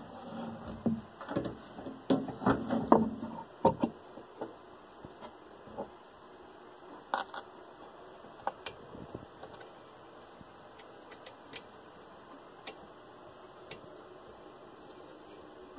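Metal clinks and knocks of an 8-inch flat lap being handled and fitted onto the side of a CabKing lapidary machine, busiest in the first four seconds, then only scattered faint clicks.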